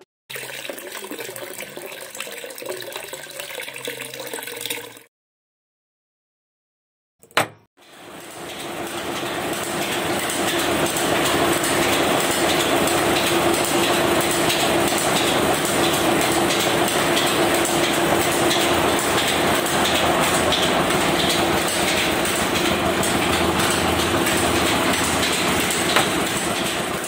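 Small electric motor of a miniature homemade cement mixer switched on with a click, coming up to speed over a few seconds and then running steadily with a hum and a rattle as the drum turns the wet sand-and-cement mix.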